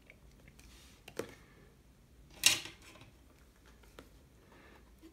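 Drawing tools handled on a desk as a mechanical pencil is put down and a pen-shaped tool picked up: a soft click about a second in, a sharp, louder clack about two and a half seconds in, and a faint tick near the end, over quiet room tone.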